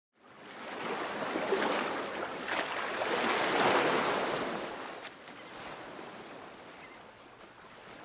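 Surf washing in over beach pebbles, swelling to its loudest about halfway through, then drawing back and fading.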